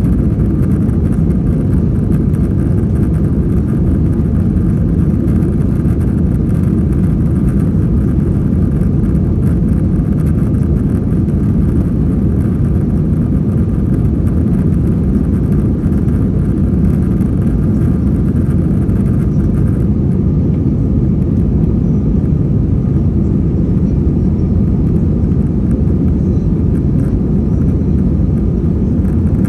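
Steady, deep rumble of an Airbus A321-231's IAE V2500 turbofan engines and the rushing air, heard from inside the cabin with the aircraft in flight.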